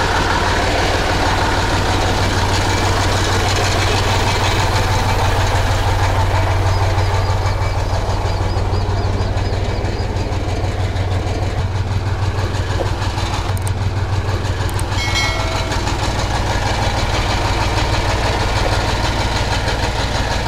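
Heavy diesel engine idling steadily, a deep even rumble.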